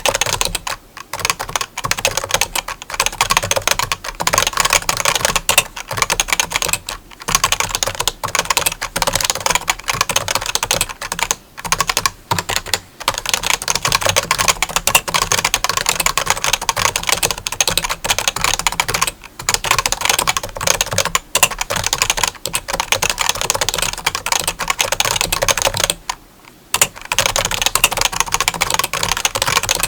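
Rapid, continuous clicking, with a few short pauses.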